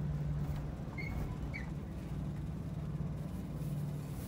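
A motor running with a steady low hum. Two short high chirps come about a second and a second and a half in.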